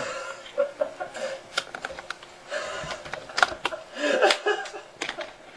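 A run of sharp, irregular clicks, like buttons or keys being pressed, with a man chuckling quietly about four seconds in.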